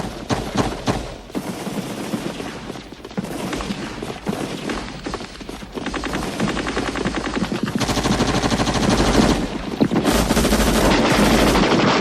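Automatic gunfire: rapid bursts and scattered single shots, becoming a heavier, continuous rattle of fire from about eight seconds in.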